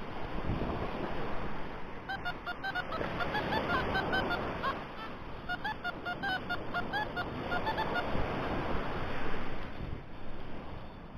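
Wind buffeting the microphone with a gusting rumble. From about two seconds in to past the middle, there is a run of short, high chirps.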